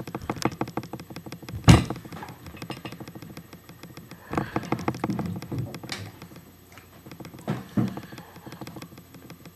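Handling noise on a webcam's microphone: a run of small taps and clicks with several louder knocks, the loudest about two seconds in.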